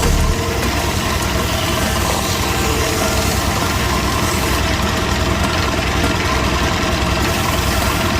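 A motor-driven machine running steadily.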